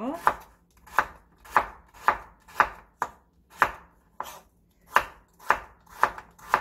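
Kitchen knife slicing a raw carrot on a wooden cutting board, each cut ending in a crisp knock on the board at about two a second.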